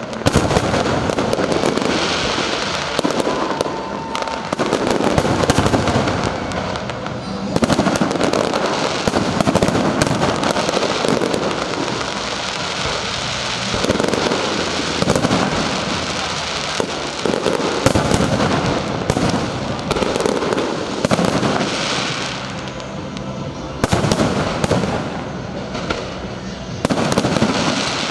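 Aerial fireworks display: a dense, unbroken barrage of shell bursts and crackle, swelling into louder volleys every few seconds.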